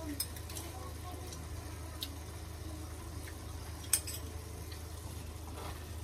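Kitchen sounds around a pot of meat sauce on the stove: a steady low hum with a few light clicks and taps, the sharpest about four seconds in.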